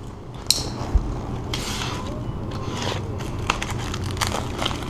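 Plastic packaging of a new magnetic door weather strip rustling and crinkling as it is handled, with a sharp click about half a second in, a low thump about a second in, and several small clicks later.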